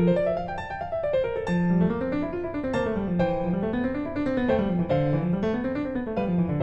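Background piano music: flowing arpeggios that rise and fall at a steady pace.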